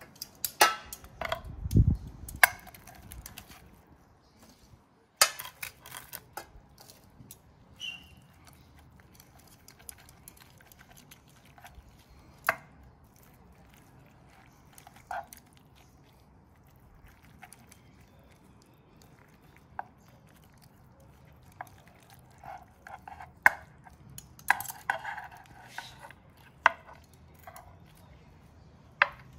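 Metal fork and spoon scraping and clicking on a wooden serving board and against each other while grilled fish is pulled off the bone. The sounds come in scattered bursts with quiet stretches between, and there is a dull knock about two seconds in.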